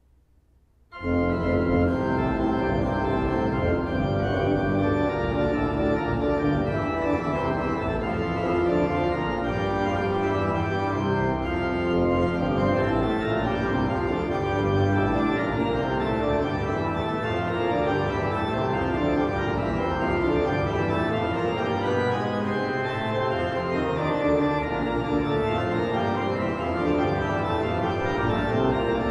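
1979 Brombaugh pipe organ, Op. 22, playing a pedal solo with the feet alone on the pedalboard. It comes in suddenly about a second in after near silence and then sounds steadily in full, sustained chords and lines.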